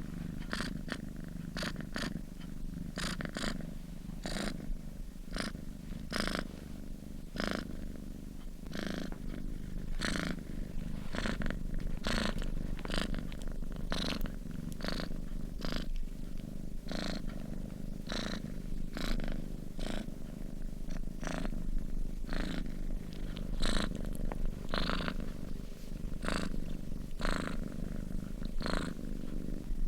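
A sleeping domestic cat purring steadily: a continuous low rumble with a soft, breathy rasp on each breath in and out, about once a second.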